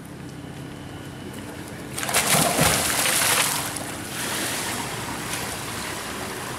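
A person plunges into a swimming pool about two seconds in with a loud splash, followed by water sloshing and churning as they swim away underwater.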